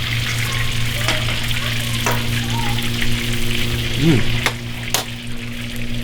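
Breaded cube steak (chicken fried steak) frying in hot oil, a steady sizzle, over a steady low hum, with a few sharp clicks scattered through.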